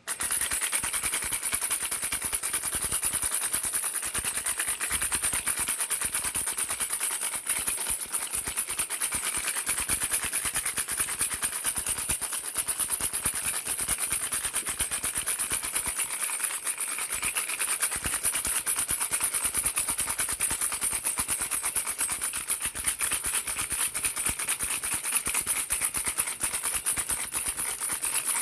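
Baby rattle shaken without pause: a dense, fast, even stream of small rattling clicks.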